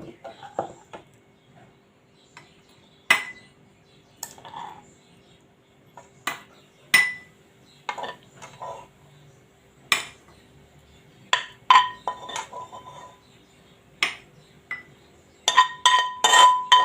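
Metal kitchen utensils clinking and tapping against a glass jar and a cooking pan as a cooked fig-and-garlic oil mixture is transferred into the jar. There are scattered sharp clinks, some ringing briefly, with a quicker run of clinks near the end.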